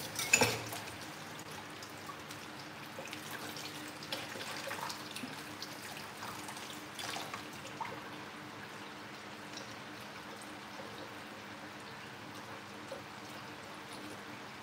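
Kitchen tap running in a steady stream into a stainless-steel sink while dishes are washed by hand, with a few light clinks of a bowl and spoons, sharpest right at the start.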